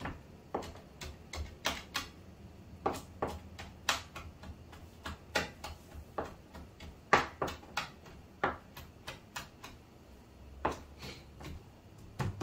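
Irregular sharp clicks and knocks of kitchen work, one or two a second with uneven gaps, over a faint low hum.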